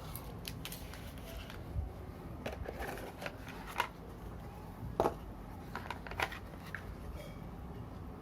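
Hands handling a phone and its box and packaging: scattered light clicks, taps and rustles, the loudest about five seconds in.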